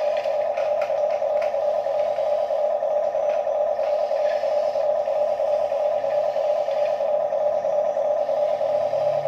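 Small electric motor of a remote-control toy construction vehicle running steadily with an even, fast-pulsing buzz, with a few faint clicks in the first second or so.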